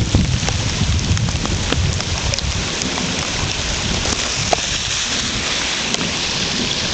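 Steady hiss of rain falling during a flash flood, with scattered sharp drop ticks over a low, uneven rumble.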